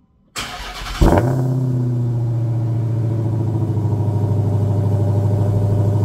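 Car engine starting: a short whir from the starter, then the engine catches with a loud burst about a second in and settles into a steady idle.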